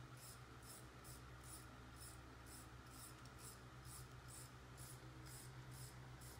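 Near silence: a low steady hum with faint, regular high-pitched ticks about two a second.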